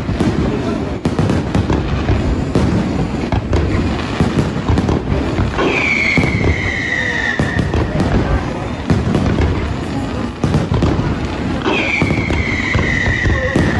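Fireworks display: a dense, continuous crackle of bursting shells and booms, with two long whistles falling in pitch, about six seconds apart.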